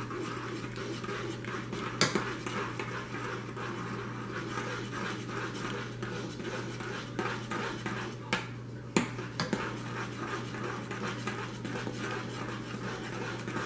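Chicken broth bubbling at a boil in a metal saucepan as beaten egg is poured in and stirred with a spoon. A few light clinks come from the spoon against the pan.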